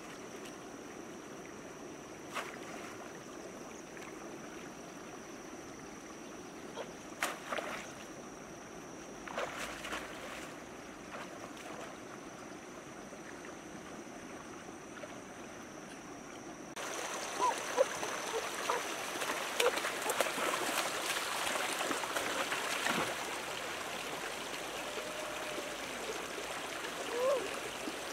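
Shallow rocky stream flowing, with a few sharp splashes and knocks as someone wades and plunges a bamboo fish trap into the water. About 17 s in the water noise jumps louder and fuller as faster water rushes over rocks.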